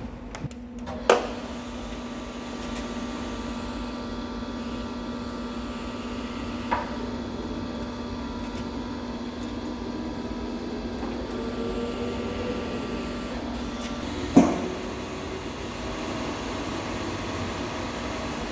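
A 1950s SIP Hydroptic No. 6 jig borer running, its face-milling cutter turning free above the work: a steady machine hum. Three sharp clunks come about a second in, around seven seconds and around fourteen seconds, and the hum changes pitch after the last.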